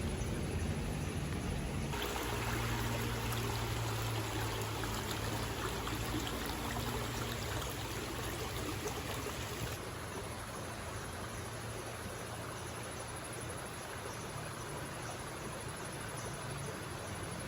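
River water flowing, a steady rushing noise. It turns abruptly brighter and louder in the upper range about two seconds in, then abruptly softer near ten seconds.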